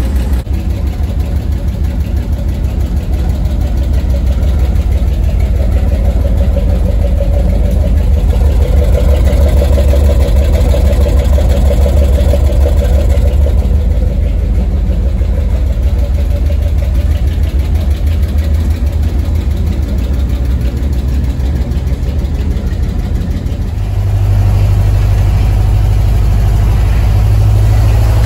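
1976 Ford F-250 engine idling steadily, soon after being started for the first time in about a month. The rumble grows a little louder and deeper-toned about 24 seconds in.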